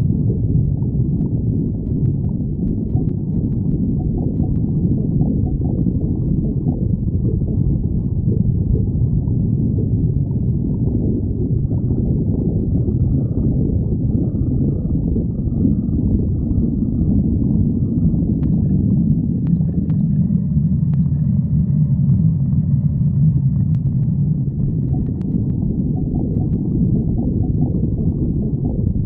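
Human stomach growling, a low continuous sound that runs on without a break and sits lower in pitch for a few seconds past the middle.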